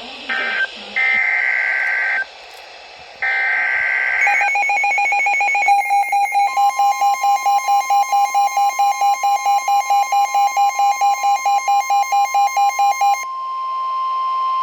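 NOAA Weather Radio emergency alert: short bursts of screeching SAME digital data tones, followed by a rapid electronic beeping alarm and the steady 1050 Hz weather-radio warning alarm tone, signalling that a new warning is about to be read. The beeping stops about a second before the end while the steady tone holds on.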